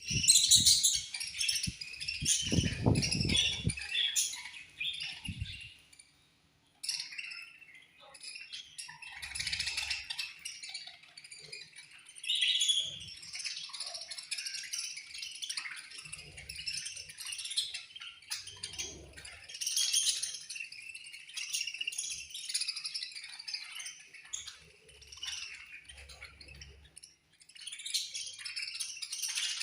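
A group of budgerigars chirping and chattering in rapid, overlapping high calls, dropping off briefly about a quarter of the way in. Some low rumbling or knocking runs under the calls early on.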